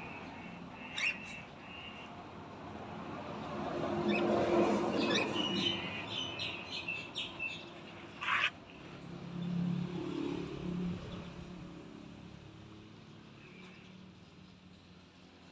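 Pet cockatiels chirping in short calls: a couple near the start, a quick run of calls in the middle, then one louder call, with a low rumble underneath.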